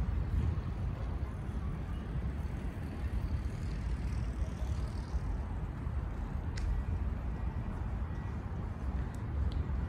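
Steady low rumble of distant city traffic, with a few brief high chirps about two-thirds of the way in and near the end.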